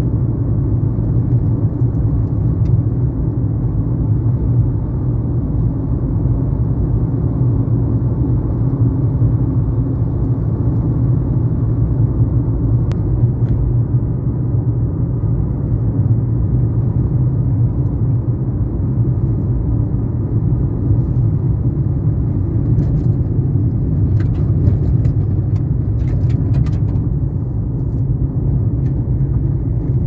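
Car driving on a paved road, heard from inside the cabin: a steady low rumble of engine and tyre noise, with a few faint clicks in the second half.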